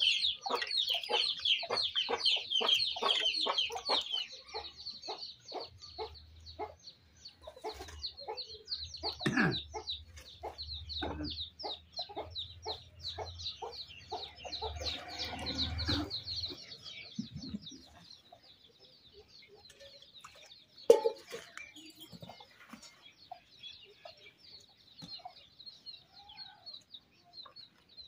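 Chickens clucking in a run of short repeated notes, with small birds chirping high over them; the clucking dies away after about seventeen seconds. A single sharp knock about twenty-one seconds in.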